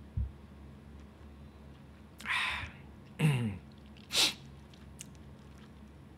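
A man's sneeze- or cough-like breathy bursts, three in about two seconds, the middle one with a voiced part that drops in pitch. A short low thump comes first, over a faint steady low hum.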